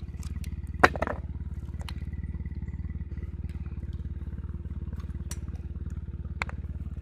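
Broken hard drive pieces clacking as they are handled: one sharp clack about a second in, with a brief rattle, and two lighter clicks near the end. A steady low drone runs underneath.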